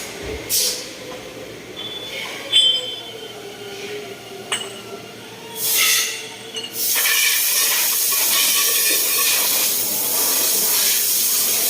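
Machining noise on a motorcycle shock-absorber production line: metal parts clink and ring with a brief squeal, then a steady loud hiss sets in about seven seconds in.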